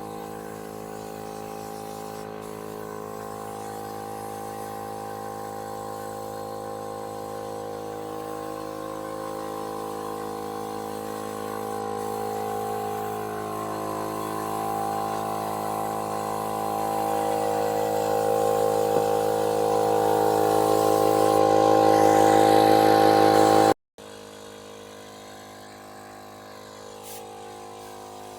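Air compressor running with a steady, many-toned hum that grows gradually louder for about twenty seconds, then cuts off abruptly and gives way to a quieter steady machine sound.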